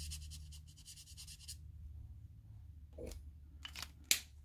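Felt-tip alcohol ink marker scratching and rubbing against a dip-powder nail tip in quick fine strokes, stopping about a second and a half in. Then a few light clicks and taps as the markers are handled, the sharpest near the end.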